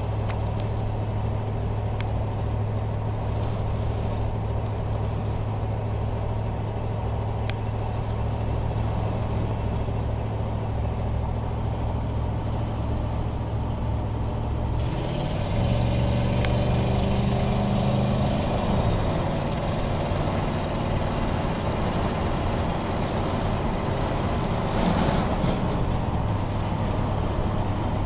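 1987 Chevy pickup's 350 V8 running with a loud exhaust leak from a broken exhaust manifold stud on the left-side manifold. It idles steadily, is revved once about halfway through, its pitch rising and then falling back to idle, and the leak gets louder with throttle.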